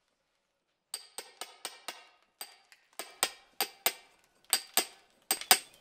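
Hammer striking a steel chisel: a series of sharp, ringing metallic taps in uneven groups, starting about a second in, as when cutting out damaged brick or mortar.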